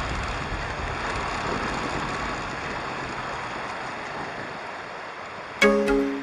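Steady rushing wind and road noise from riding a motorcycle through traffic, slowly fading. Near the end, plucked-string music starts suddenly.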